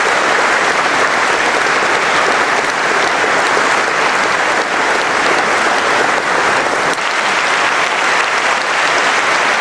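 Large audience applauding steadily in a big hall, many hands clapping at once.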